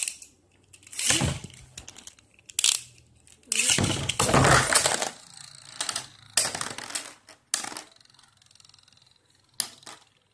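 Wyvron and Spryzen Beyblade Burst spinning tops clattering against each other and the plastic stadium in irregular bursts of sharp clicks and rattles, with a faint spinning hum between the hits.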